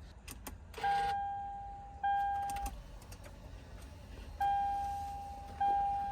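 Electronic chime in the Lexus LX 570's cabin sounding four times at uneven intervals. Each chime is a single clear tone that starts sharply and fades over about a second, as the head unit and its newly fitted touchscreen come on and are tested. A few faint clicks come just before the first chime.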